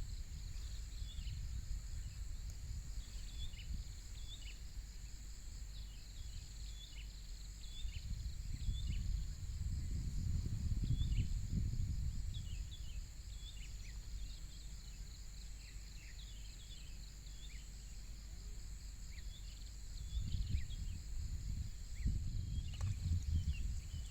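Outdoor ambience: insects give a steady high buzzing trill throughout, and short falling bird chirps come in scattered through it. A low wind rumble on the microphone swells about a third of the way in and again near the end.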